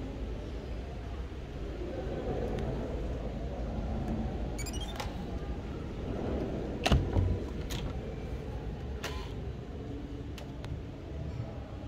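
Electronic key-card hotel door lock: a quick rising run of beeps as the card is read, then the lock and handle click and the latch clacks as the door is pushed open, three sharp clicks in all, the first the loudest. A low steady rumble sits underneath.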